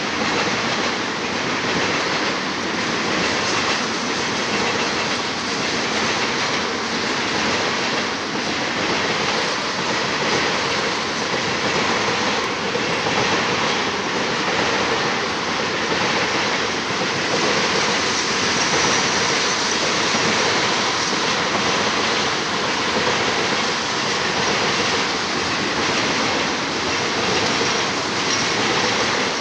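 A freight train of tank cars rolling past: a steady rolling noise of steel wheels on rail, with repeated clicks as the wheels pass over rail joints.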